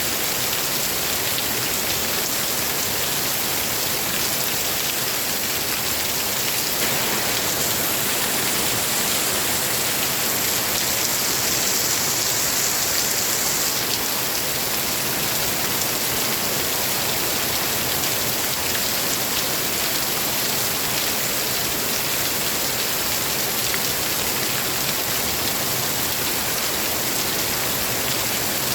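Steady heavy rain falling, an even, dense hiss with no break.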